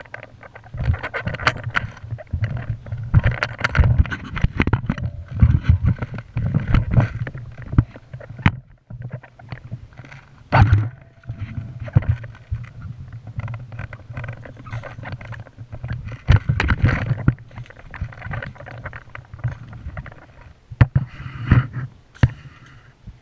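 Handling noise from a mounted GoPro camera as its wearer moves: irregular knocks, scrapes and rustling over a constant low rumble.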